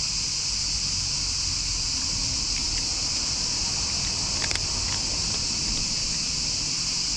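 A steady, high-pitched insect chorus filling the background, with a few faint crunches of a cat chewing dry kibble, clustered about halfway through.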